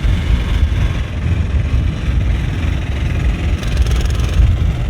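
Vehicle engine running with a loud, uneven low rumble.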